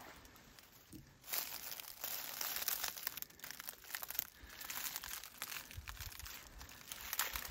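Close rustling and crinkling, a dense run of small crackles that starts about a second in and keeps on.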